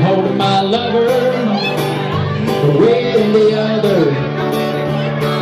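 Live acoustic country band playing between sung lines: strummed acoustic guitars under a melody line that slides up and down in pitch through the middle.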